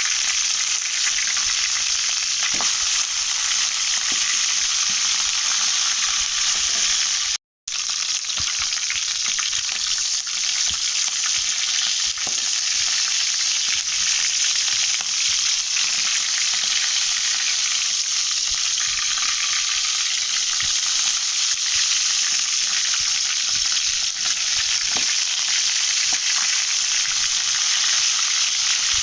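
Chicken legs shallow-frying in a pan of oil: a steady, loud sizzle with small crackling pops. It cuts out for a moment about seven and a half seconds in.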